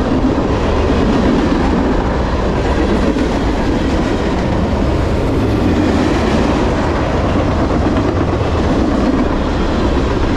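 Mixed freight cars of a long manifest train passing close by at about 49 mph: a loud, steady rumble of steel wheels running on the rails.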